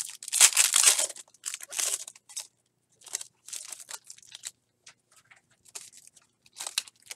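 Foil trading-card pack wrapper being torn open by hand: a loud crackling rip in the first two seconds, then intermittent lighter crinkling as the wrapper is peeled off the stack of cards, with another crinkle near the end.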